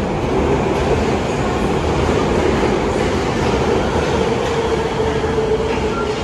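Osaka Metro Midosuji Line subway train pulling into an underground station platform, with a steady rumble of wheels and running gear. A motor whine sinks slowly in pitch as the train brakes.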